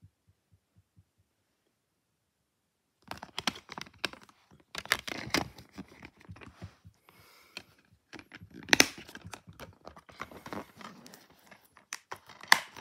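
A plastic DVD case being handled. Starting about three seconds in: a run of clicks, creaks and crinkling, with a sharp snap about nine seconds in and two more near the end.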